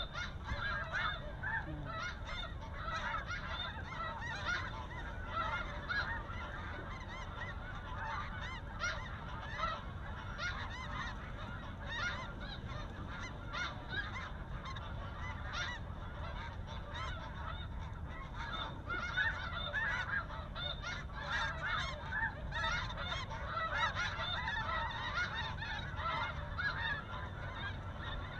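Snow geese calling: a dense, continuous chorus of many overlapping high-pitched yelps and honks from a large flock.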